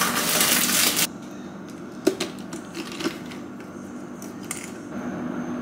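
A cardboard box of silicone stretch lids being torn open, with a tearing noise lasting about a second, then quieter handling with two sharp knocks as a lid is stretched over a bowl.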